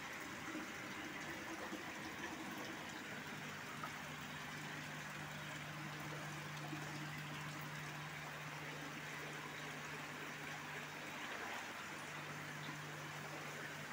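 Water trickling and splashing steadily from inlet pipes into a concrete fish-rearing tank, over a steady low electric hum from a pump or aerator.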